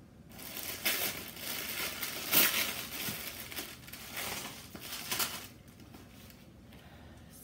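Tissue paper crinkling and rustling as it is pulled open by hand, in a run of several louder crackles that dies down after about five and a half seconds.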